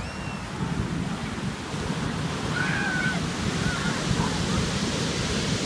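Surf breaking and washing up the beach: a steady rush of waves and churning foam that grows louder about two seconds in.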